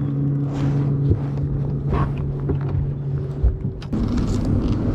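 Boat motor running with a steady hum, with wind on the microphone; the hum changes pitch just under four seconds in, shortly after a single knock.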